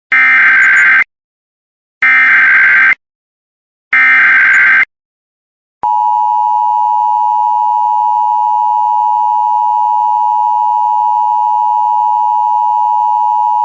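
Emergency Alert System data and alarm: three one-second bursts of the buzzy SAME digital header, a second apart, that encode the alert for receivers. About six seconds in comes the EAS attention signal, a steady two-tone alarm held for about eight seconds.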